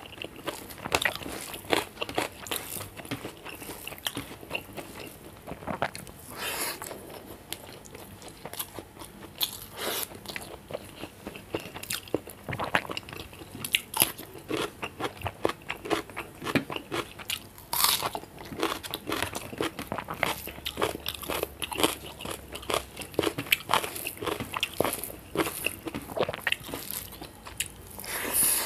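Close-miked eating by hand: a continuous run of wet chewing and smacking mouth sounds as rice and curry are eaten, with crisp crunching bites of raw cucumber slices.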